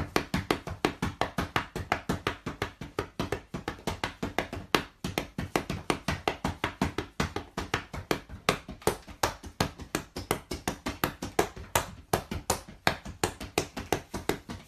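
A white cockatoo drumming: rapid, even knocks, about four to five a second, as it beats at a stick and a metal bowl.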